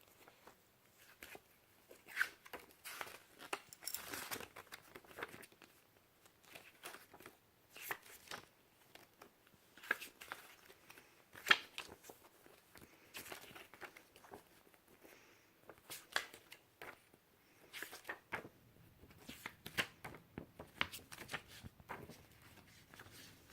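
CD packaging being handled: irregular rustling and crinkling of plastic and paper, with scattered light clicks and taps.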